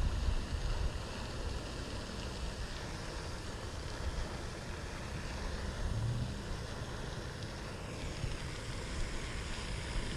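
Wind buffeting the microphone, a steady rumbling hiss, with the faint whir of a spinning reel being cranked during the retrieve.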